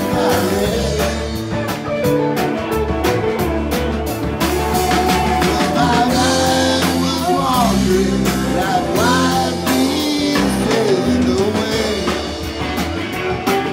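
Live rock band playing a loose jam: electric guitars with a grinding, grungy tone, bass guitar and a drum kit keeping a steady beat, with a man singing lead.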